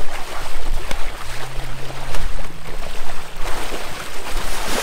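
Bronze whaler shark thrashing in shallow water beside the shore, a run of irregular, loud splashes and churning water.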